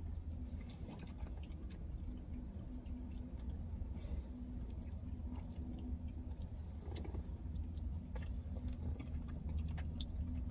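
Close-up chewing and biting of thin-crust pizza, with many small crisp crackles and clicks from the mouth. A steady low hum runs underneath.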